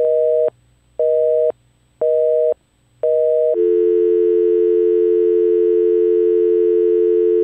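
Telephone busy signal: a two-tone beep, half a second on and half a second off, four times, then a steady two-tone telephone dial tone from about three and a half seconds in. The tone pairs match the North American busy and dial tones.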